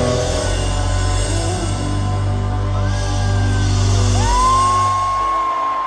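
Live rock band music over a concert sound system, with no singing; heavy bass runs until about five seconds in and then drops out, and a long high note rises and is held over the last two seconds.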